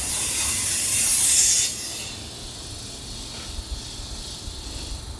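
A train at the platform venting compressed air: a loud hiss that swells, then cuts off sharply about two seconds in. A low rumble continues underneath.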